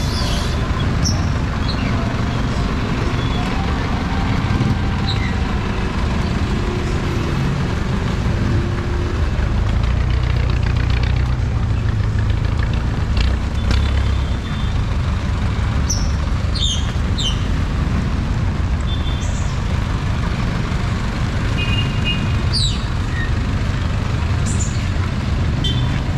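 Road traffic on a wet street: a steady rumble of engines and tyre noise, with a heavier vehicle running past about ten to fourteen seconds in and a few short high squeaks.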